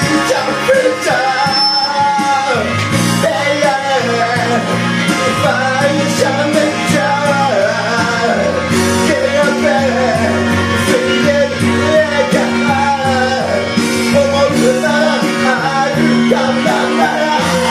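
A man singing into a karaoke microphone over a backing track of band instruments.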